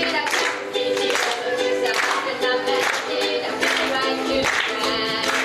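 A woman singing to her own ukulele strumming, a steady strummed rhythm under the voice.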